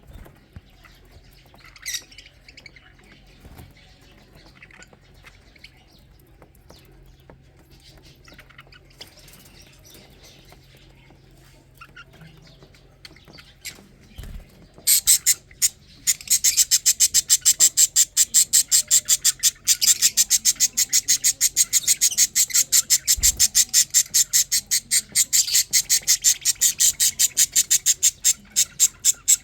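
Lovebird chicks calling: faint scattered chirps at first, then about halfway through a loud, fast run of high-pitched repeated cheeps that keeps going, typical of chicks begging while being fed.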